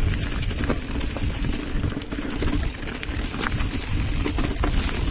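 Mountain bike riding fast down a rocky dirt trail, heard from a camera on the bike. There is a steady wind rumble on the microphone, with frequent small clicks and rattles from the bike over roots and rocks.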